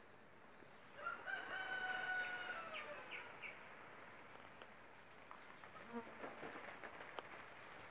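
A rooster crows about a second in: one long held call that falls away at the end, followed by a few short high notes. Underneath, bees buzz faintly around the annatto flowers.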